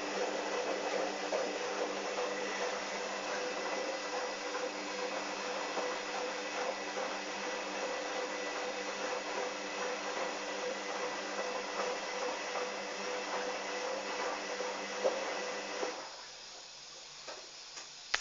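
Hoover Dynamic washing machine moving water, a steady hum with a rush of water over it, during the rinse stage of the cycle; it cuts off about sixteen seconds in.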